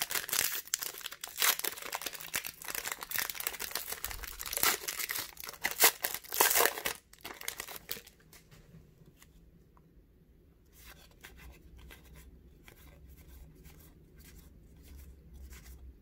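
Foil wrapper of an Upper Deck hockey card pack being torn open and crinkled, a dense crackling for about the first seven seconds. It then drops to faint rustling.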